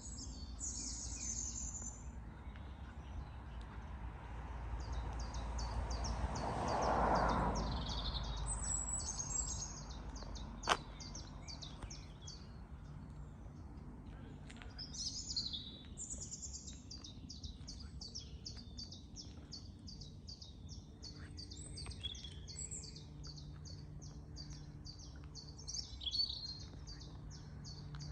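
Outdoor ambience: birds chirping over and over, with a vehicle passing by, its noise swelling and fading about seven seconds in. A single sharp click comes near eleven seconds.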